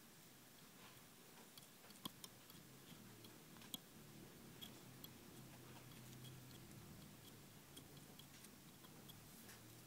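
Near silence: room tone with a few faint, irregularly spaced small clicks and a faint low hum.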